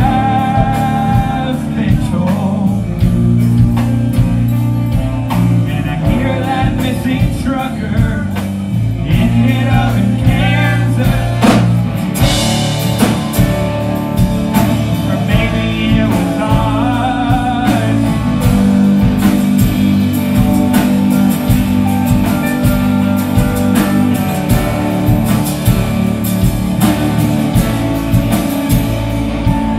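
Live rock band with electric guitars, bass, drums and keyboard playing a song with a sung lead vocal, heard through the club's PA. A cymbal crash comes about twelve seconds in.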